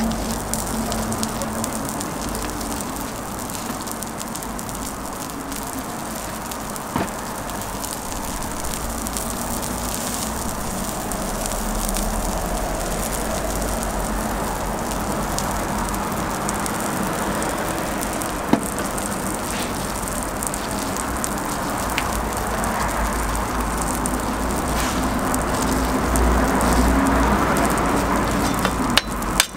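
Bread toasting on a hot flat-top griddle with a steady frying sizzle, under a low steady hum, with a few sharp clicks along the way.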